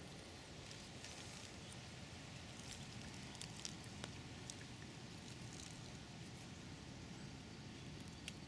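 Faint woodland ambience: a steady low rumble with a few scattered faint ticks and crackles, a small cluster of them around the middle and one more near the end.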